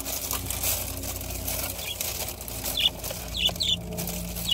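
Small birds chirping, about five short high chirps from about two seconds in, over a steady low hum heard from inside the car.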